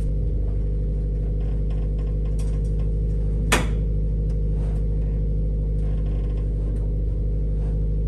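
Steady low mechanical hum at an unchanging pitch, with a single sharp click about three and a half seconds in.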